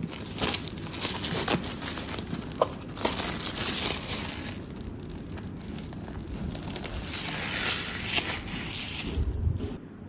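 Plastic wrapping crinkling and tearing as a cardboard grinder box is unwrapped and turned over, in three spells of rustling with a few light knocks. A low thump comes near the end as the box is set down.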